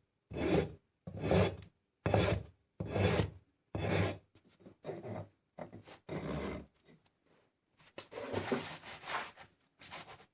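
A hand file rasping back and forth over a plastic oil filter housing cap's hexagon that has been rebuilt with super glue and baking soda, reshaping it. Separate strokes come about once a second, with a longer rub near the end.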